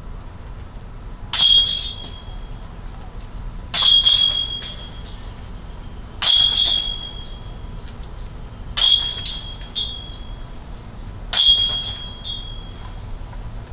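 Gateway Bulls Eye disc golf basket's chains jingling as putted discs strike them, five putts about two and a half seconds apart. Each hit rings briefly and fades, and one is followed by a couple of smaller rattles as the disc settles into the basket.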